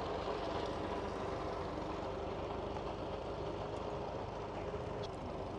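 Fordson tractor engine running steadily under the load of ploughing.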